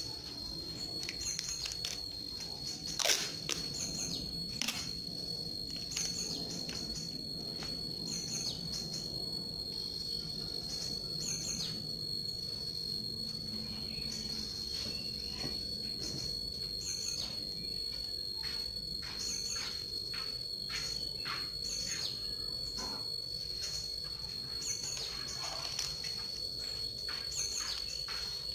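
Birds chirping again and again over a steady high-pitched insect drone, with a sharp click about three seconds in.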